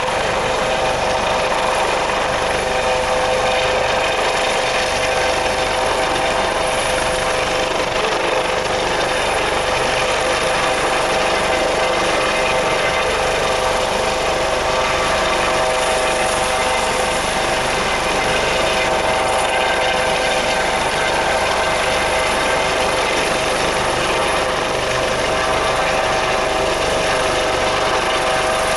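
Coast Guard HH-65 Dolphin helicopter hovering, its turbine engines and rotors running steadily with a constant whine over a dense rush of rotor noise.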